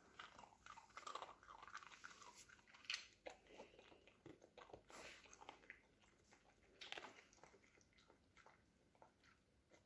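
A small dog chewing a rabbit-meat cube treat: faint, irregular crunching and biting, with the most distinct crunches about three and seven seconds in.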